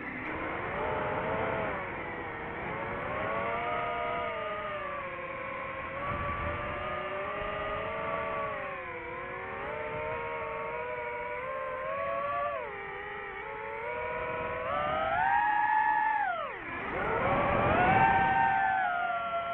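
DJI FPV drone's motors and propellers whining, the pitch sliding up and down with the throttle; it climbs near the end, dips sharply and climbs again.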